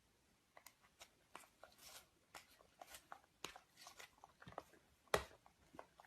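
A dog chewing and crunching food: faint, quick, irregular crunches and clicks from about half a second in, with one louder crunch about five seconds in.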